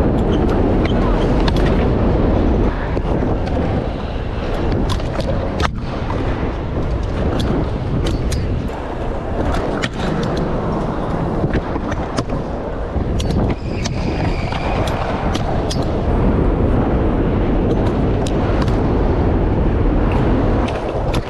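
Trick scooter riding on skatepark concrete: a loud rolling rumble of the wheels with sharp clacks of landings and deck hits scattered throughout.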